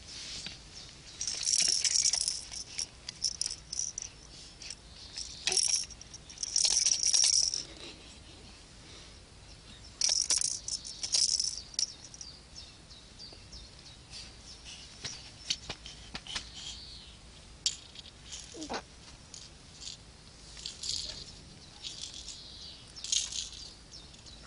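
Plastic baby rattle toys shaking and clattering in short irregular bursts as a baby grabs and handles them, with scattered small clicks between the bursts.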